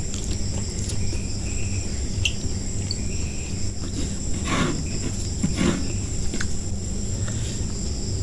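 Crickets chirring steadily in the background, with two short chewing or crunching sounds from a person eating about four and a half and five and a half seconds in.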